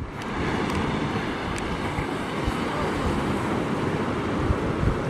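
Surf breaking and washing up on a sandy beach, with wind buffeting the microphone in low gusts.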